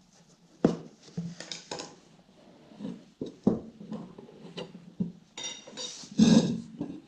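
Metal hand tools clanking against metal parts: a string of sharp knocks and clinks, with a loud, ringing clank a little before the end.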